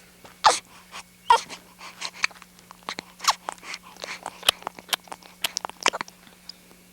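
A young girl hiccuping: two sharp hiccups in the first second and a half, followed by a run of fainter short clicks and puffs.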